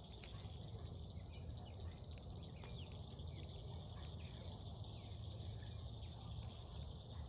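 Outdoor ambience: a steady high insect drone with scattered short bird chirps over it, and a low rumble underneath.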